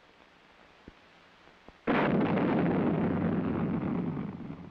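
Two faint clicks, then about two seconds in the sudden roar of an Honest John solid-fuel artillery rocket being launched. The roar holds for about two seconds and then fades away.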